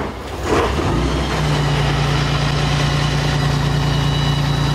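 Tracked armoured vehicle's engine starting up, catching in the first second and settling into a steady, loud idle.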